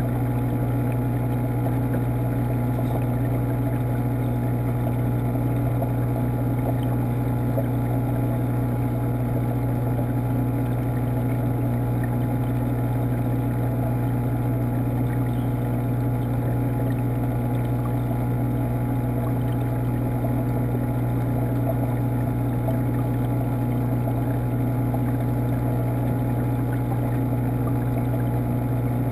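Steady low hum of a marine aquarium's water pump, heard underwater through the camera's waterproof housing.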